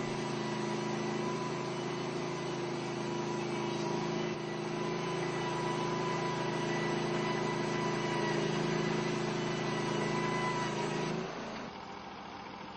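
Portable band sawmill running steadily under its engine as the blade saws through a log. Near the end the sound drops to a lower, quieter level.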